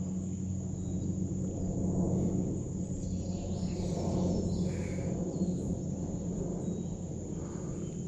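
Insects droning in a steady, high, even tone, over a low steady hum and a soft outdoor background noise.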